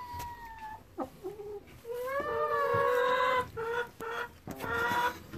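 A hen sitting on a straw nest to lay, making drawn-out calls: a faint one at the start, a long call of about a second and a half in the middle, then a few shorter ones. A couple of light knocks come in between.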